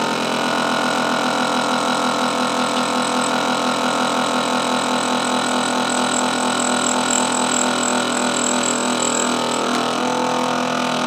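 Countertop vacuum sealer's pump running steadily, drawing the air out of a bag holding a half chicken, with a thin high whine joining in for a few seconds midway.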